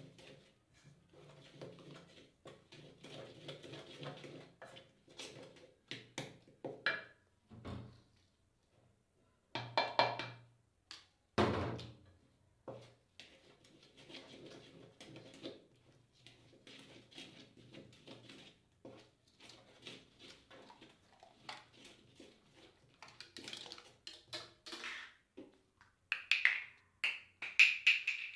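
A wooden spoon stirring batter in a stainless steel bowl, with irregular scrapes and knocks against the metal as flour is mixed into mashed banana and egg. Two louder knocks come about ten seconds in, and a burst of sharper knocks comes near the end.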